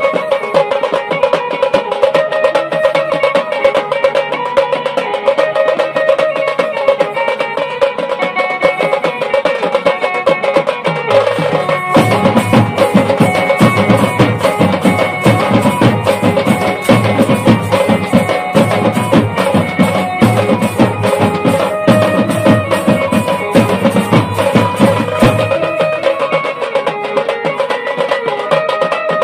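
Tasha party drum band playing a fast bhangra beat: rapid stick strokes on tasha drums and shoulder-slung barrel drums. About twelve seconds in the drumming grows denser and heavier, and it eases again near the end.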